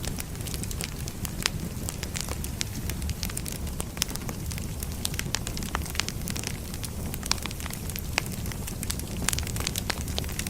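Firewood burning, with a steady low rumble of flame and frequent sharp, irregular crackles and pops from the logs.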